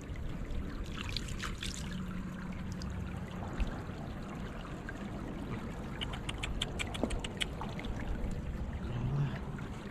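Shallow water trickling and splashing in a flooded field, with a quick run of light clicks about six seconds in.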